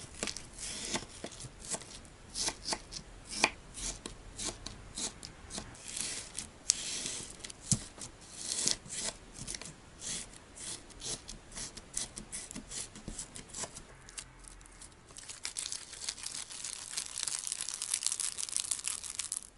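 A sponge soaked through with clear slime is squeezed and pressed close to the microphone. It gives a crisp, crunchy crackle ("shari-shari") of many small irregular clicks. About fifteen seconds in, the sound thickens into a denser, steadier rustling crackle.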